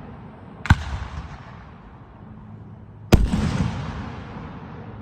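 Two firework shells bursting close by: a sharp bang under a second in, then a louder one about three seconds in. Each trails off in a long fading echo.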